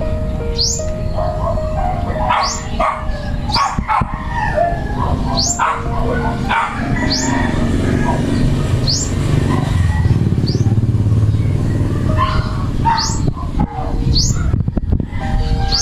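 A small bird calling with short, sharp rising chirps, repeated irregularly about once a second, over a steady low rumble that swells in the middle.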